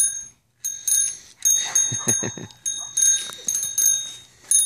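A child's handlebar bicycle bell is rung over and over: a quick run of bright dings, each left ringing briefly before the next. A few soft knocks come around two seconds in.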